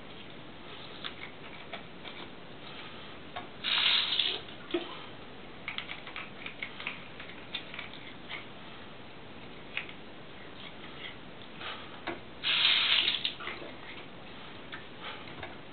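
Small clicks and scratches from a small dog's teeth being cleaned by hand, with two louder short rustling bursts, about four seconds in and again near twelve and a half seconds.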